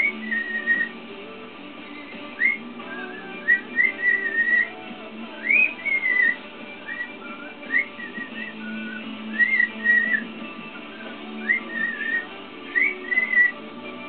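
Cockatiel whistling a string of short phrases, rising glides and warbling notes about a second apart, over background music.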